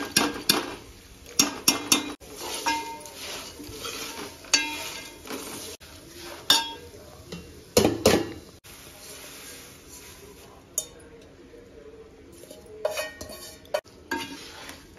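Steel spoon stirring and scraping in an aluminium pot, knocking and clinking against the sides, over a light sizzle of peanuts, dal and spices frying in oil. Near the end there is a quick run of small ticks.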